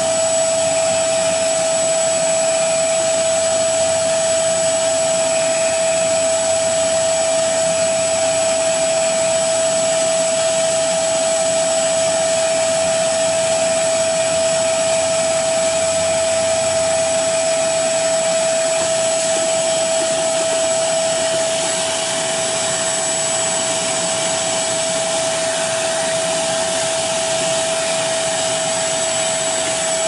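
Portable carpet cleaner's suction motor running steadily with a constant high whine, sucking up water through its hose and hand tool.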